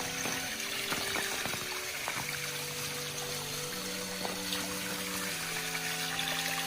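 Background music of slow, sustained chords that change every second or so, over a steady hiss.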